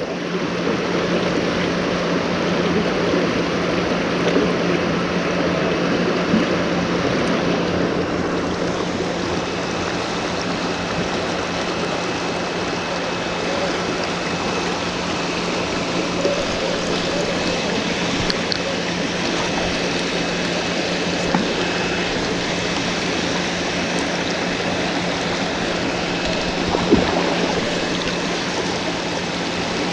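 Creek water rushing steadily, an even wash with a low steady hum underneath.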